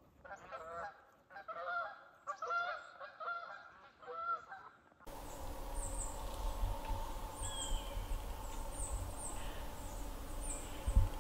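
Geese honking, a run of repeated calls for about the first five seconds. After a sudden cut, a steady outdoor hiss takes over, with faint short high chirps every second or so.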